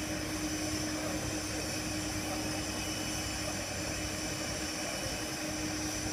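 Steam locomotive C11 207 standing at rest, giving off a steady hiss with a constant low hum underneath.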